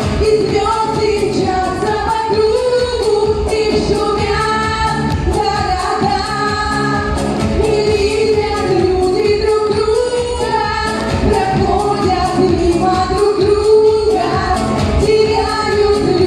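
Pop song music: a lead melody with no recognisable words over a steady beat.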